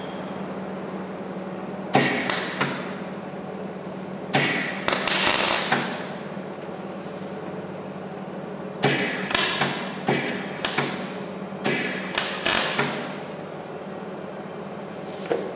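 Welder tacking the new sill and wheel-arch metal in a run of short welds: five or six noisy bursts of half a second to a second or so, with pauses between them. A steady low hum runs underneath.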